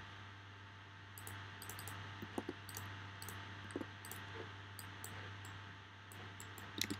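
Faint typing on a computer keyboard with a few mouse clicks: scattered light clicks, clustered around one to two seconds in and again around three to four seconds, over a steady low hum.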